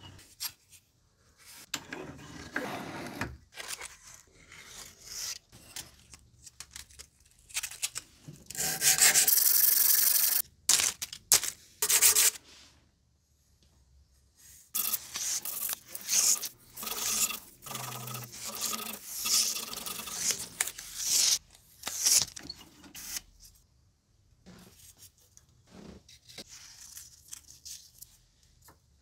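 Small hand-held sharpening stone rubbed back and forth on the carbon-steel blade of a yanagiba sashimi knife, in irregular runs of strokes with pauses. The longest and loudest run comes about nine seconds in.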